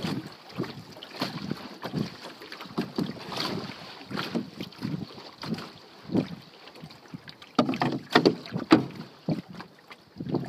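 Canoe being paddled: irregular paddle strokes splashing through the water, with short knocks, a few louder ones close together near the end.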